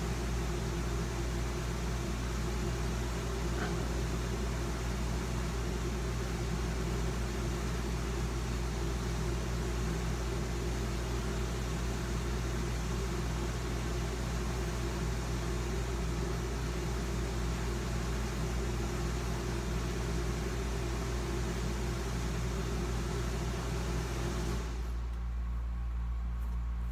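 A steady mechanical hum with a strong low drone and a constant hiss over it. About two seconds before the end the higher hiss drops out, leaving only the low drone.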